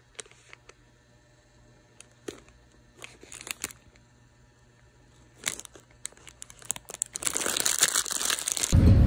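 Crinkling and rustling handling noise: scattered soft crackles, then a denser, louder stretch of crinkling near the end. In the last moment it gives way to the much louder steady rumble of a vehicle.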